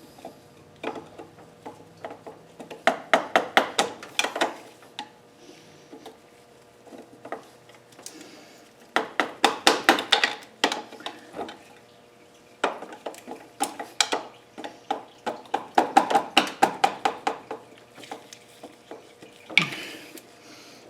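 Socket ratchet clicking in repeated bursts of rapid metallic ticks as it is worked back and forth on a tight bolt.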